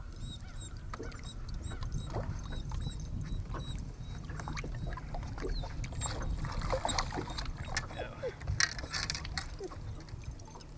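Steady low rumble of wind and water around a fishing boat, with scattered clicks and a burst of louder clattering and rattling about seven to nine seconds in, as a hooked bass is brought to the boat.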